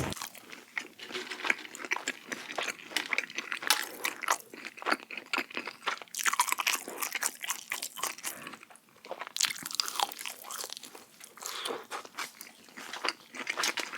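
Close-miked crunching and chewing of chicken nuggets with cheese: a dense run of crisp bites and crackles, with wet chewing in between.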